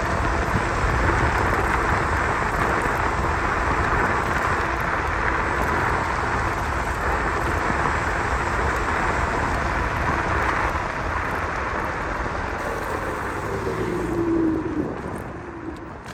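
Dualtron Victor electric scooter riding along a street: a steady rush of wind and tyre noise. Near the end a whine falls in pitch and the rush eases off as it slows.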